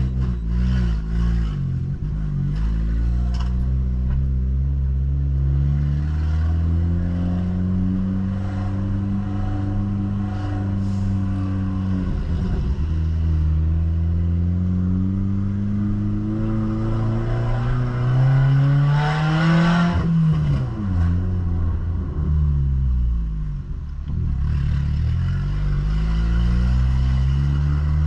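Ford New Fiesta with a diffuser fitted ahead of all its mufflers, its exhaust rumbling as the car is driven. The revs climb steadily, fall away sharply about two-thirds of the way through, then climb again near the end.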